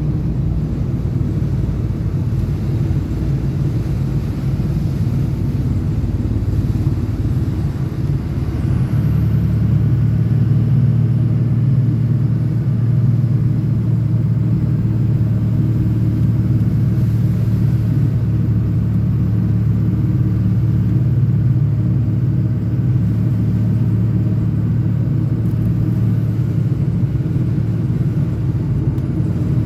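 Ford 6.0L Power Stroke turbo-diesel V8 pickup driving along: a steady low engine and road rumble. It grows louder and steadier about eight seconds in.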